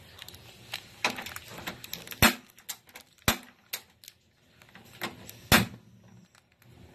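Small plastic sachet crinkling and crackling as it is bitten and pulled to tear it open, in a string of irregular sharp crackles with a few much louder snaps.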